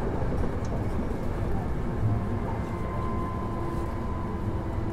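Hankyu 1000 series electric train running, heard from inside the passenger car: a steady rumble of wheels on rail. A thin, steady whine from its permanent-magnet synchronous traction motors comes in about halfway through.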